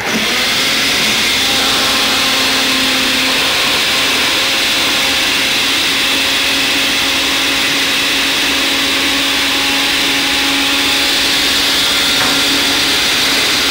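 A 600-watt Cuisinart countertop blender switches on and runs steadily with an even motor whine. It is whipping homemade mayonnaise that has already set, thickening it further as olive oil is added.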